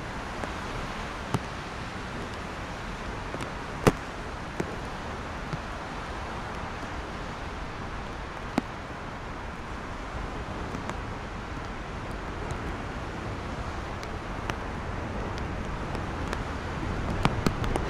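Steady wash of expressway traffic and rain, growing a little louder near the end. Scattered sharp ticks cut through it, the loudest about four seconds in and a few close together near the end.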